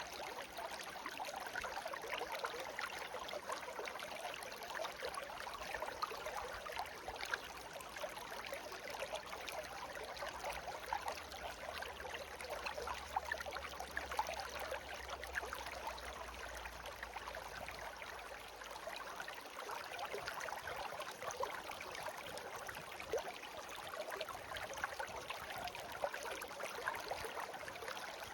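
Shallow stream babbling steadily, a continuous trickling and gurgling rush of water.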